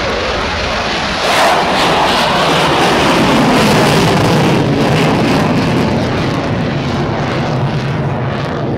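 Boeing F-15I Ra'am fighter's twin turbofan jet engines passing by. The jet noise swells about a second in, its pitch falls as the aircraft goes past, and it settles into a steady rumble.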